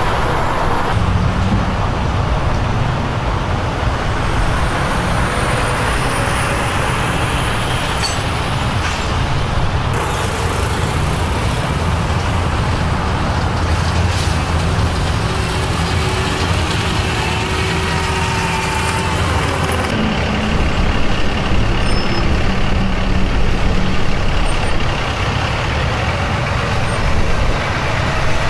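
Heavy diesel trucks running in steady freeway traffic, a continuous low engine rumble under road noise.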